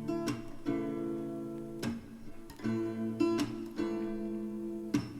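Background music: acoustic guitar strumming chords, a strum about every second, with no singing.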